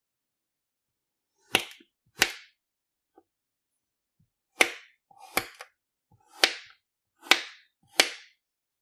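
A knife cutting down through a block of kinetic sand: seven sharp cuts, each with a brief tail. Two come close together, then after a pause five more come about one a second.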